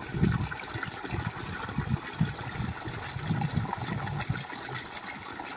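Water gushing from an irrigation pipe outlet and splashing into a shallow pool, with irregular low splashes and thuds as palmyra palm tubers are swished and rubbed clean in it.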